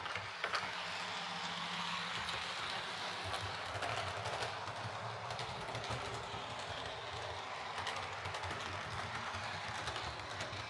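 Heljan Class 58 OO gauge model diesel locomotive running along the track: a steady whir of motor and gears, with the wheels clicking over the rail joints now and then.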